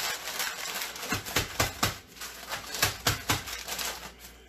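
A woman laughing in two runs of short, quick bursts, about four to five a second, over a faint rustle of hands working the fish.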